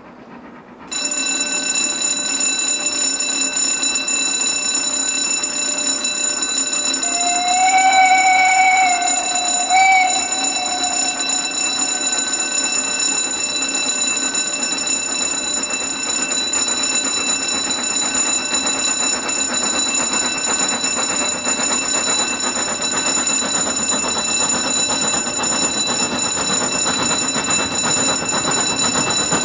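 Steam locomotive approaching along the line. Its whistle sounds about a quarter of the way in, one long note with a short break. Its running noise grows louder toward the end, over a steady high ringing tone.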